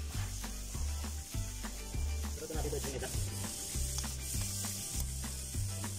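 Background music with a steady beat: a repeating bass line of short held notes and quick, evenly spaced clicking.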